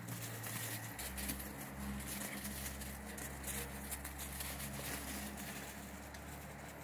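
Dogs' paws running and scuffling through snow, a quick irregular series of soft steps, over a low steady hum.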